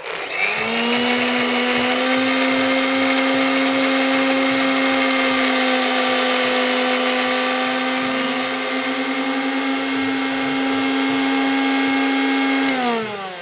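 Electric mixer-grinder running while it grinds kalyana murungai (Indian coral tree) leaves and small onions into a paste without water. The motor whine rises to speed about half a second in, holds steady, then winds down, falling in pitch near the end.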